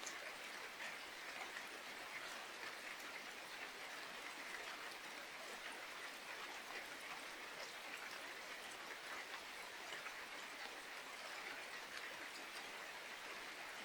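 Steady rain falling: an even hiss with many small ticks of separate drops.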